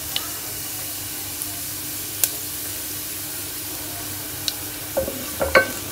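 Whole cumin seeds frying in hot oil in an aluminium pressure cooker, a steady sizzling hiss with occasional pops: the oil is hot enough for the tempering. A few sharp knocks come near the end.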